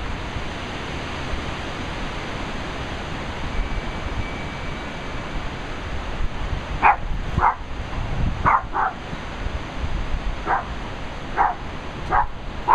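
Steady background hiss, then from about halfway a dog barking: about eight short, high barks, some in quick pairs.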